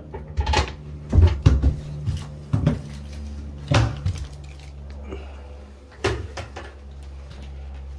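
Scattered knocks and clunks, about seven spread unevenly over the seconds, over a steady low hum.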